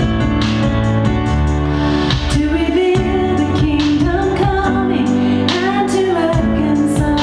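A woman's solo singing voice comes in about two seconds in over a steady instrumental accompaniment, singing a slow song.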